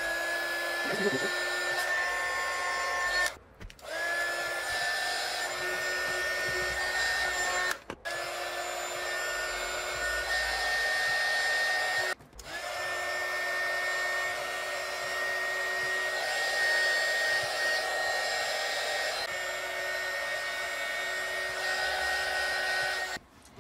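Handheld heat gun blowing hot air: a steady fan whine that is switched on four times, each start rising briefly in pitch, with three short pauses, then cut off just before the end.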